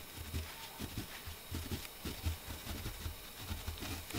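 Soft, irregular knocks and rustles of denim and a sewing template being handled and repositioned on a work table.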